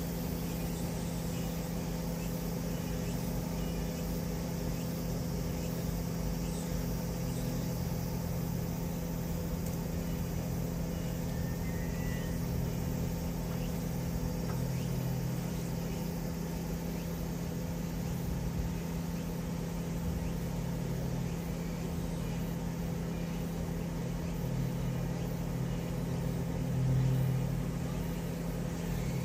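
Steady low mechanical hum with a few fixed tones, which swells briefly near the end.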